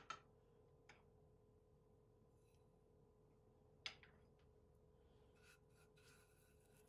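Near silence broken by a few short, sharp knocks: two close together at the start, a softer one just under a second in, and another a little before four seconds in, with faint rustling near the end.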